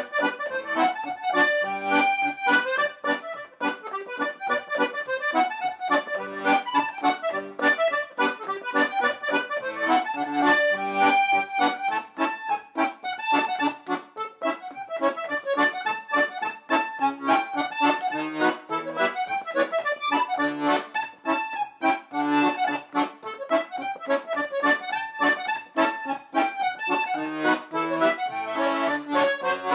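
Piano accordion playing an instrumental tune: a quick melody of short notes over steady chords, with no singing.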